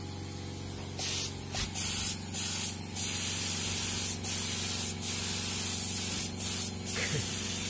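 Air compressor running with a steady hum under a constant high hiss of compressed air, with short louder bursts of hiss coming and going every second or so.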